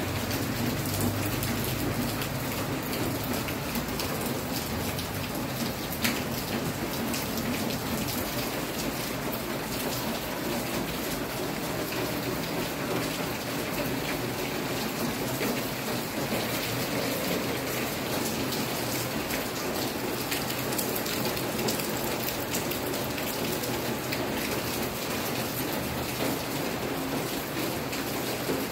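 Steady rain falling, with water running off the roof eaves onto the ground. A single sharp click about six seconds in.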